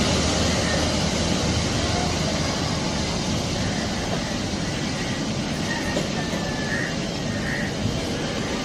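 Airbus A350's Rolls-Royce Trent XWB jet engines running steadily as the airliner taxis onto the runway, a constant rumbling whoosh that eases slightly over the few seconds.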